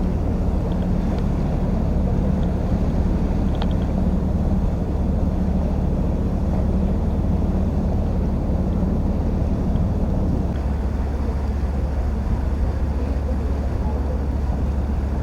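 Lake cruise boat's engine running steadily, heard on board with wind and water noise. A higher hum within it fades out about ten seconds in.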